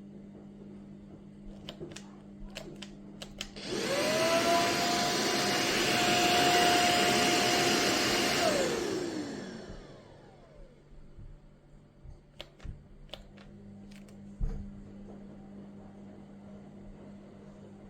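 Proscenic P11 cordless stick vacuum switched on: its motor whines up to a steady high pitch and runs loud for about five seconds, then is switched off and winds down with a falling whine. A few light clicks come before and after.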